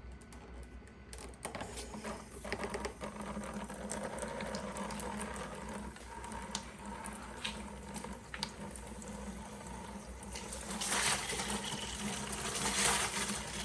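Shower water running, turned on about a second in and rushing steadily, with louder splashing spells near the end. A steady low hum runs underneath.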